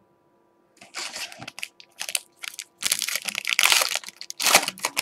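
Foil wrapper of a Panini Prizm basketball card pack being torn open and crinkled by hand. Bursts of crackling start about a second in and come on and off, loudest in the second half.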